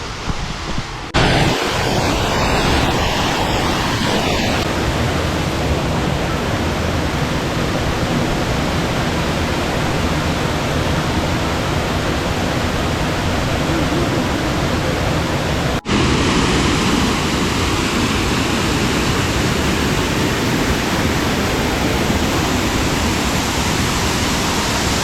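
A waterfall's steady, loud rush of falling water. The sound cuts out for an instant about two-thirds of the way through.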